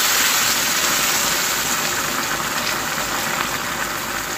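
Pasta with cabbage and spices in a hot kadai (wok), sizzling and bubbling hard just after hot water has been poured in. It is a steady hiss that slowly eases.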